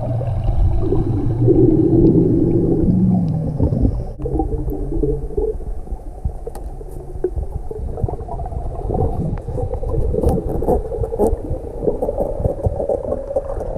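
Muffled underwater sound picked up by a camera as a snorkeler dives: a low rumble of moving water, with a low steady hum for roughly the first four seconds, then scattered crackles and clicks.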